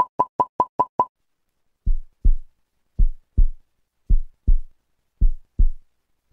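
A quick run of about six short electronic beeps, then a heartbeat sound effect: pairs of low thumps repeating about once a second.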